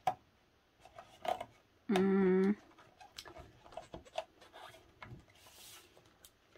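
Hands handling a photobook in a plastic cover: light rustling, rubbing and small taps of paper and plastic. About two seconds in, a short steady humming buzz lasts about half a second, starting and stopping sharply.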